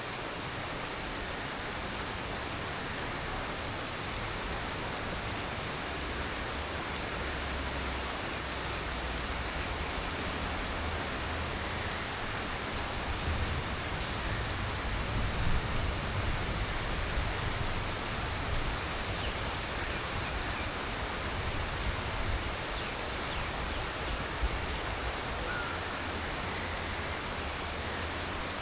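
Heavy tropical monsoon rain falling steadily, a dense even hiss of drops, with a low rumble swelling and fading through the middle.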